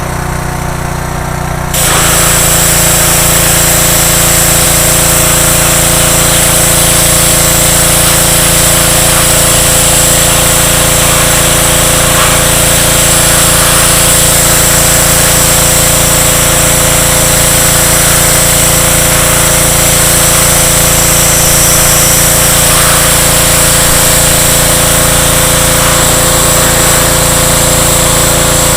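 Pressure washer running steadily. About two seconds in it jumps louder and a strong hiss comes in, then it holds steady.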